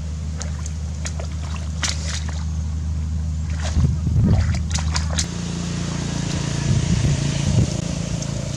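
Hands sloshing and splashing in shallow muddy water and mud while feeling for fish, with a cluster of sharper splashes about four to five seconds in, over a steady low hum.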